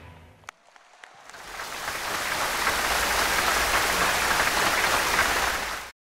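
Music with drums dies away, then a large crowd's applause swells up from about a second in and holds steady before cutting off abruptly near the end.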